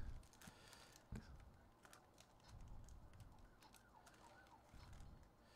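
Near silence, with faint crinkling and ticking from a foil trading-card pack wrapper being peeled open by hand.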